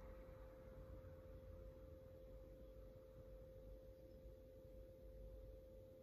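Near silence: room tone with a faint steady hum on a single unchanging pitch.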